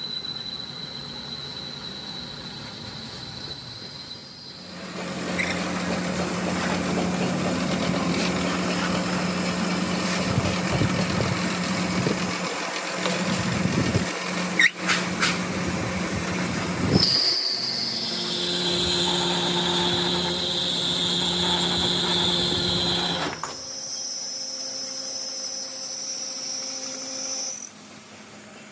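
Machine tools cutting a heavy-duty truck piston: a steady motor hum under high cutting whines. The whines change pitch abruptly several times, with a few sharp clicks in the middle.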